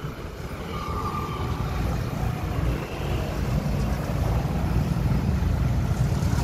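A large engine running steadily with a low, rapid beat, growing a little louder over the first two seconds.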